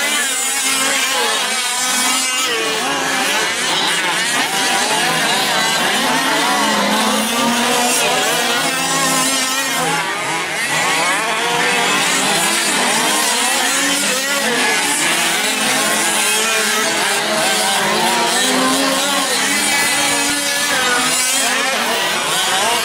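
A pack of gas-powered 1/5-scale RC off-road trucks racing, their small two-stroke engines revving up and down over one another in a continuous buzz.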